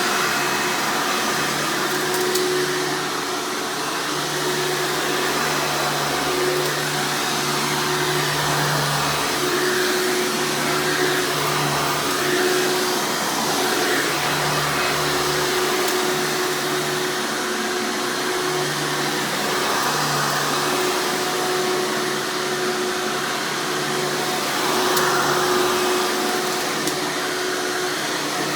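Hoover Encore Supreme upright vacuum cleaner running, loud and steady, with a lower hum that comes and goes every second or two.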